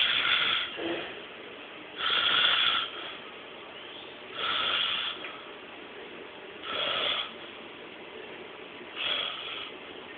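Snoring: five short snores, about one every two seconds, with quieter breathing noise between them.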